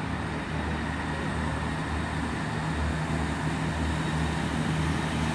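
Class 166 diesel multiple unit pulling out, its diesel engines giving a low, pulsing rumble that slowly grows louder.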